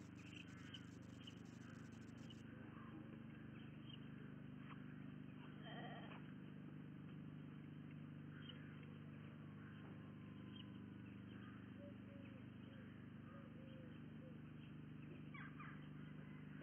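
Faint outdoor webcam sound: a steady low electrical hum with scattered faint small-bird chirps, and one wavering bleat-like call about six seconds in.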